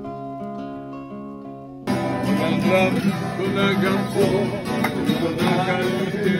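Acoustic guitar notes of a recorded blues song fading out, then, about two seconds in, an abrupt switch to a live acoustic guitar strummed with several voices singing along.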